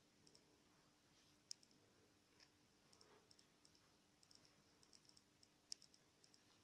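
Near silence with faint scattered clicks and light handling noise from hands working yarn and crocheted fabric; the sharpest clicks come about a second and a half in and near six seconds.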